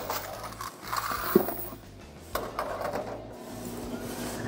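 Key unlocking the coin box of a coin-operated front-load washer, with a series of short metallic clicks and rattles and one sharp click about a second and a half in.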